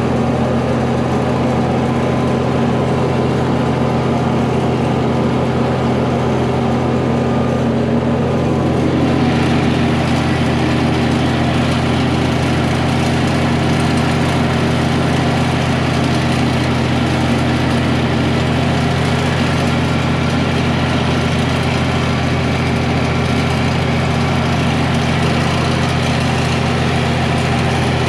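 Vehicle engine running steadily at an even speed while being driven. About nine seconds in, a brighter, hissier noise joins it.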